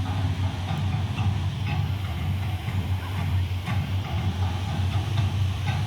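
A steady low mechanical rumble with faint, distant voices over it.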